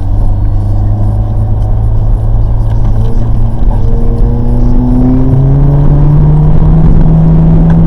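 Volkswagen Golf R's turbocharged four-cylinder engine accelerating, heard from inside the car over low road rumble. Its pitch climbs steadily and steps up about five seconds in.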